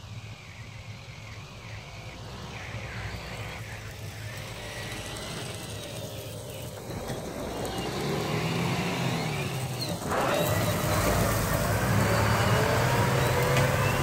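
Claas Lexion 770 combine harvester running steadily while cutting wheat, a distant low drone that slowly grows louder. About ten seconds in the sound jumps to a much nearer, louder John Deere tractor engine as it drives past towing a grain trailer.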